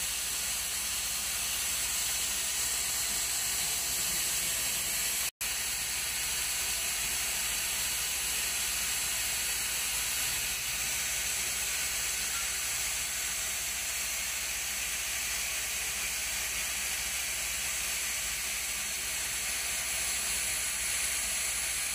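Profile grinding machine grinding a steel moulding cutter under flowing coolant: a steady, high hiss of the grinding wheel and coolant spray, cut off for a split second about five seconds in.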